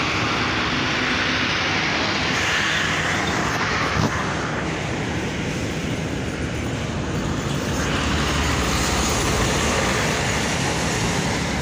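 Steady vehicle and road noise, with the rustle of cloth rubbing over the phone's microphone and a single knock about four seconds in.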